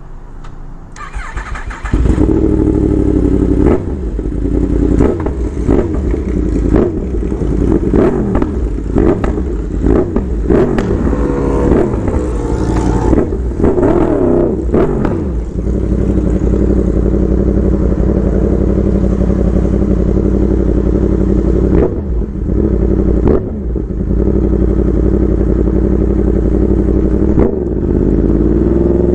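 Yamaha R1 inline-four sport bike engine revving through its exhaust, its pitch repeatedly rising and falling, then holding a steadier note and rising again near the end. It gets much louder about two seconds in.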